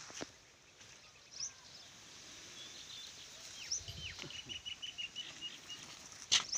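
Small birds chirping outdoors: a few short, falling chirps, and in the middle a run of about a dozen quick, even chirps. A sharp click or knock near the end is the loudest sound.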